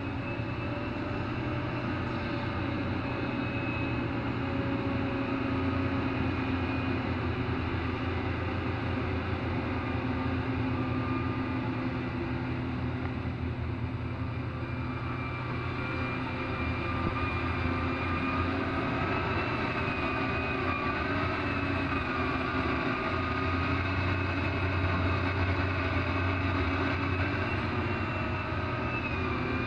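Large hydraulic crawler excavator working: its diesel engine runs steadily under load, with a whine from the hydraulics that wavers in pitch as the machine digs, swings and loads a dump truck.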